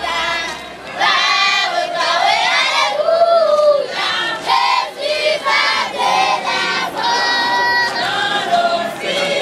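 Children's choir singing a gospel hymn together, many voices close by, with some long held notes.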